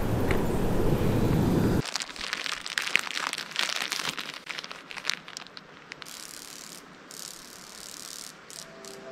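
Wind buffeting the microphone as a loud low rumble, stopping abruptly about two seconds in. Then a clear plastic sandwich bag is handled and unwrapped, crinkling and crackling densely for a few seconds before thinning to a few faint crackles.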